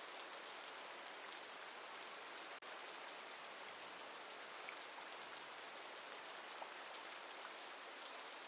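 Steady rainfall: an even hiss of rain with a few scattered drop ticks, dropping out for an instant about two and a half seconds in.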